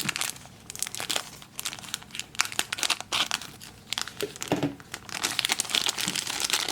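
Small blind-bag toy packaging crinkling and rustling in the hands as it is opened, with irregular sharp crackles.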